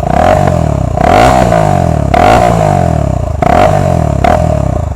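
KTM Duke motorcycle engine with its exhaust removed, revved in a series of sharp blips about once a second. The open exhaust makes it loud and raw.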